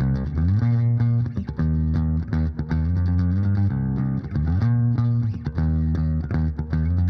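Background music led by bass guitar and guitar, with sliding bass notes and plucked chords at a steady beat.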